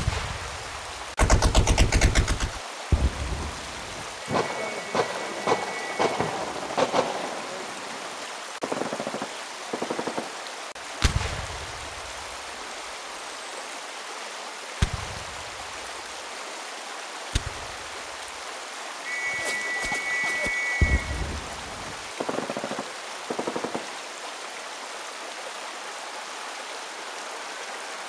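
Battle sound effects over the steady rush of a creek: a rapid machine-gun burst, scattered rifle shots and several heavy shell explosions with rumbling tails. Twice, a far-off Metropolitan Police-pattern trench whistle sounds a short shrill two-tone blast, about 4 s in and again about 20 s in.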